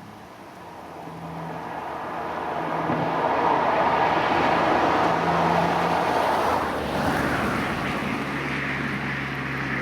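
Alfa Romeo Brera's 3.2 V6 engine and tyre noise as the car drives, swelling steadily over the first few seconds and easing off after about seven seconds. The engine runs smoothly, with its cylinder misfire repaired.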